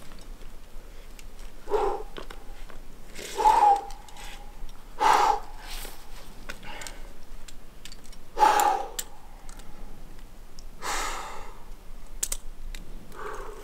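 Rock climber breathing hard while climbing: about six forceful exhalations and grunts a second or two apart, with light clicks in between.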